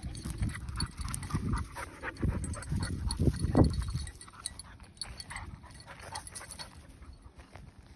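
Footsteps crunching and rustling through dry, matted grass and weeds. The sound comes in uneven steps, louder in the first half with one stronger crunch about three and a half seconds in, then lighter rustles.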